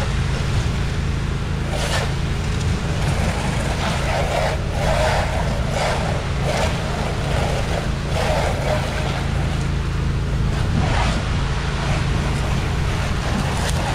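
Pressure washer's engine running steadily, with the hiss of the water jet spraying the eaves and soffit swelling in repeated bursts as the wand is pointed and released.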